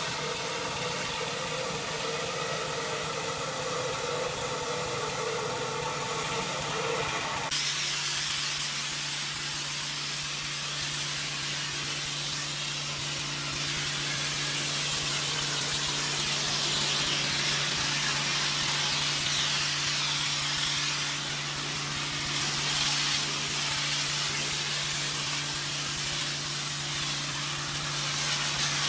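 Gas-engine pressure washer running; about seven and a half seconds in, the sound changes abruptly to a loud steady hiss of the high-pressure water spray over a steady low engine note.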